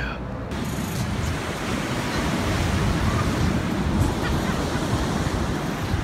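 Steady wash of ocean surf on a beach, with wind buffeting the microphone.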